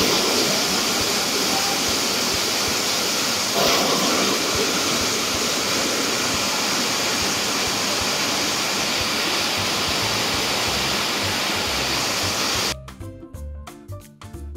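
Steady rush of water falling and splashing into a pond, with music faintly beneath it. About two seconds before the end the water sound cuts off and music with a beat takes over.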